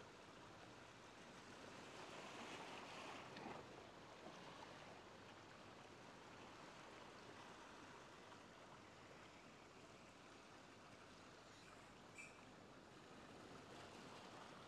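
Faint ocean waves washing on the shore, swelling once about two to three seconds in.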